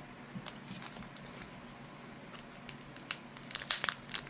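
Small clicks and crackles of a blind-box toy package being handled and opened by hand, sparse at first and becoming busier and louder about three seconds in.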